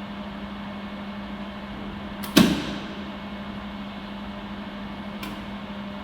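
A 200 W jewelry YAG laser welding machine running with a steady hum, and one loud sharp snap about two seconds in that fades quickly, followed by a faint click near the end: the flash-lamp laser firing, the sound that shows the machine works.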